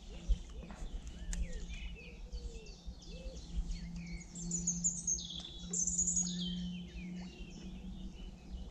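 Birds singing and chirping, with quick high chirps and trills that grow busier about halfway through.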